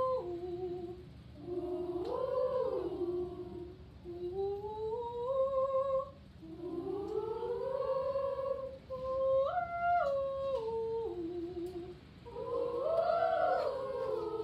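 A girls' choir vocalizing a warm-up in unison: about six short phrases that slide up and down or climb and fall in steps, with brief breaks for breath between them.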